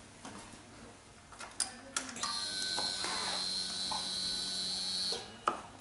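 A few clicks as the Suzuki DL650's ignition is switched on, then a steady electric whine for about three seconds that stops suddenly, typical of the motorcycle's fuel pump priming.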